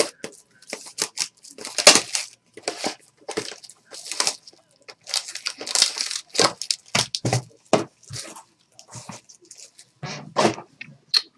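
Plastic wrapping being torn and crinkled off a sealed box of trading cards, in a quick run of irregular crackles and rips.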